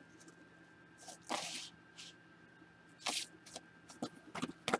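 Trading cards being handled: two brief swishes of cards sliding against each other, then a few light clicks and taps near the end.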